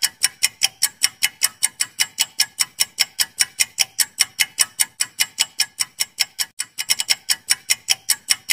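Countdown-timer ticking sound effect: fast, even clock-like ticks, about five a second, running steadily throughout.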